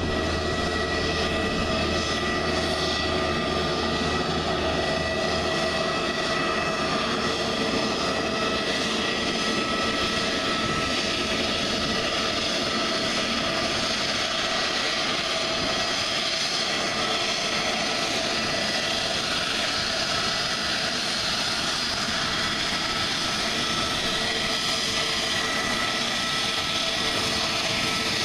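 Airbus A320neo's CFM LEAP-1A turbofan engines running at taxi power: a steady jet whine with several held tones over a broad rush.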